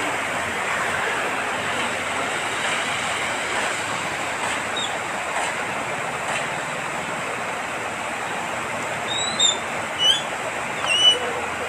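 Floodwater rushing across a street in a steady, turbulent flow. Three short high chirps stand out near the end.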